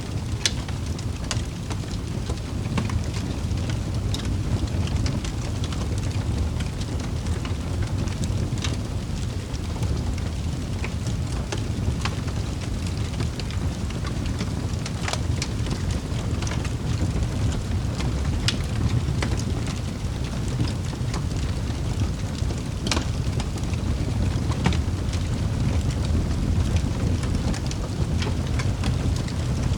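Wood fire burning steadily with a low rumble, crackling with scattered sharp pops, a few louder snaps among them.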